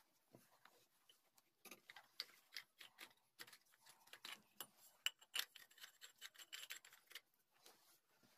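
Faint, irregular clicks and small metal knocks from a hand ratchet pipe-threading die being handled and its ratchet handle fitted, thickest in the middle of the stretch.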